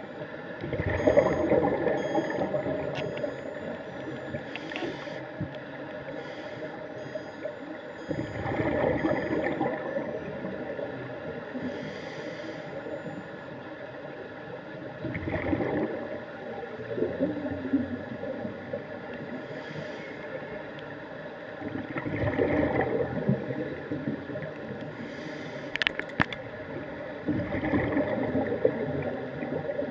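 Scuba regulator exhalations heard underwater: a bubbling rush of exhaled air about every six to seven seconds, five times, over a steady underwater hiss, with a couple of sharp clicks near the end.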